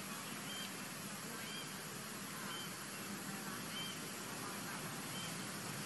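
Short, high chirping animal calls, roughly one a second, over a steady background hiss.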